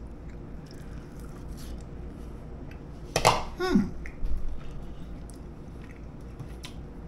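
Faint mouth sounds of a man chewing a bite of chicken wing over steady room hum; about three seconds in, a short sharp sound followed by a brief voiced hum that falls in pitch.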